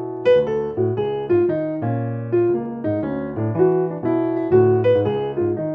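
Jazz piano: a swung left-hand pattern rocking between D-flat major 7 and D major 7 chords, with the right hand playing quick pentatonic lines, switching between the D-flat and D pentatonic scales, over the top.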